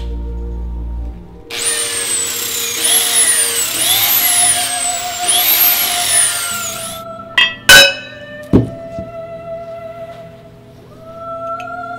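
Cordless drill with a sanding pad grinding the edge of a piece of glass: a harsh whine that rises and falls in pitch in repeated sweeps for about five seconds, then stops. A few sharp clinks follow, over steady background music.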